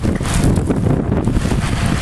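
Wind blowing across the microphone: a loud, gusting rumble of noise.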